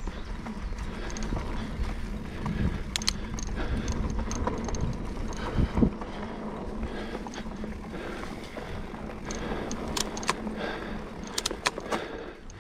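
Mountain bike riding down a dirt singletrack over dry leaves: steady tyre rumble, with the bike's chain and parts rattling and clicking over bumps and a sharp knock about halfway through.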